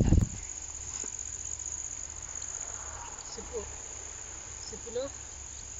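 Crickets chirping in a steady high trill. A loud rushing noise cuts off a moment after the start.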